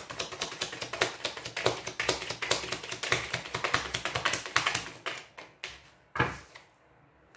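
A tarot deck being shuffled by hand: a rapid stream of card clicks and flutters for about five seconds. Then a few single taps, and a card laid down on the table about six seconds in.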